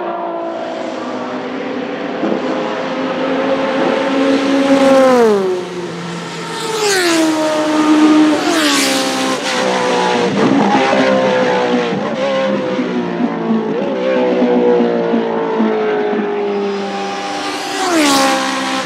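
Historic race car engines running hard as cars pass on a wet track, the engine pitch dropping sharply several times, with a hiss of tyre spray as the cars go by.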